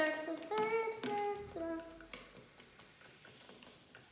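A child singing a few held notes that step up and down in pitch, stopping about two seconds in. Afterwards, faint light clicks of a spoon stirring inside a test tube.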